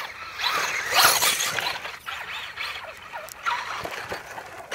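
RC car driving over muddy ground, its motor whining up and down in short, uneven revs, coming close near the end.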